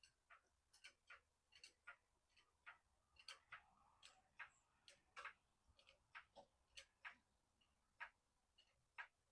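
Near silence with faint, irregular light clicks and taps, two or three a second.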